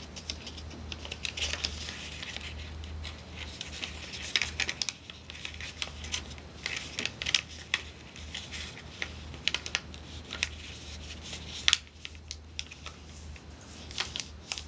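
Printing paper being folded and creased by hand on a table: irregular crisp rustles and scrapes as fingers press and run along the folds, with one sharper tap about twelve seconds in, over a steady low hum.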